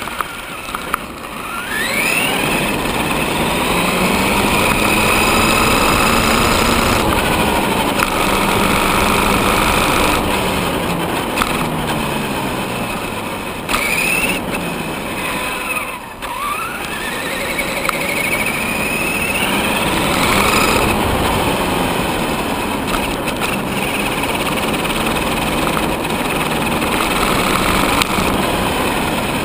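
Traxxas Summit RC truck's electric motor and gears whining, the pitch rising and falling as it speeds up and slows down several times, sharply dropping and climbing again about halfway through, over a steady rush of its tyres on asphalt.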